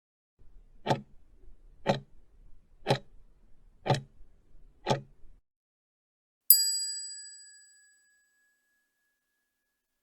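Quiz countdown timer sound effect: five clock-like ticks about a second apart, then a single bell ding that rings out and fades over about a second and a half.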